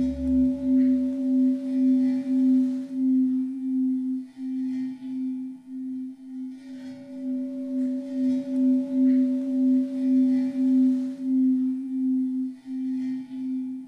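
A tall metal cylinder sung like a singing bowl by rubbing a wooden stick around its rim. It gives a steady, pulsing hum with a higher overtone that comes and goes, and the scratchy friction noise of wood on metal swells with each circling stroke. A deep low tone dies away about a second in.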